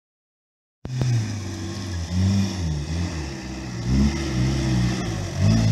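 Opel Monterey's 3.1-litre diesel engine revving up and down as the lifted off-roader crawls across rough, rutted ground; it starts abruptly about a second in.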